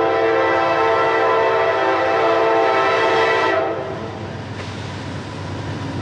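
Norfolk Southern diesel locomotive's air horn sounding a long blast as the train approaches a grade crossing, cutting off about three and a half seconds in. The next blast starts right at the end.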